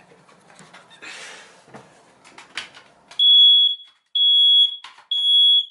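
Faint handling clicks and rustling, then, about three seconds in, a ceiling smoke detector sounds three loud, high-pitched beeps, each about half a second long with short gaps between them. It is the alarm going off while its battery is being changed.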